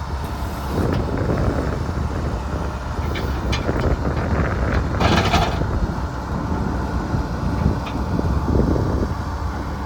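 Kobelco SK210LC-9 excavator's Hino diesel engine running steadily, with wind on the microphone and a brief hiss about five seconds in.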